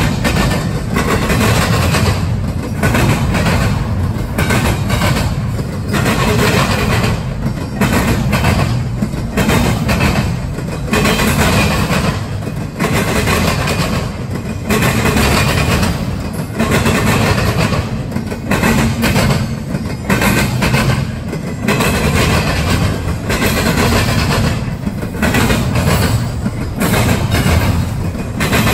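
Double-stack intermodal train's well cars rolling past: a steady low rumble of steel wheels on rail, broken by recurring clattering clacks as the wheel sets pass over the rail.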